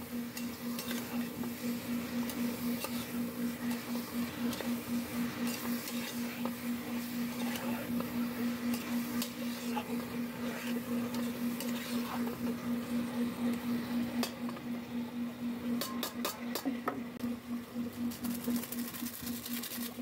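Metal spoon stirring and scraping raw chicken pieces around an aluminium cooking pot, with repeated clinks against the pot's sides, over a steady low hum. A quick run of light ticks comes near the end.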